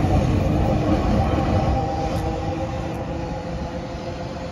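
Vintage heritage tram rolling away along street rails, a steady running rumble with a few held tones that fades as it moves off.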